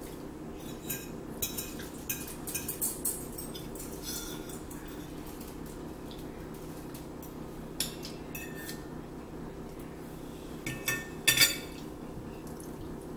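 Forks clinking and scraping on plates while eating, in scattered sharp clicks, with a few louder clinks near the end, over a steady low hum.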